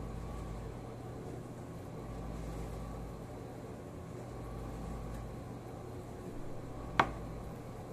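Steady low hum of room tone, with one sharp click about seven seconds in.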